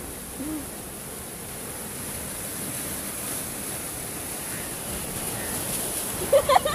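Strong sea surf breaking and washing over shoreline rocks: a steady rush of waves that swells a little midway.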